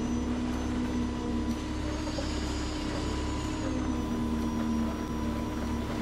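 Concrete pump truck running steadily during the pour, a constant engine drone with a steady hum.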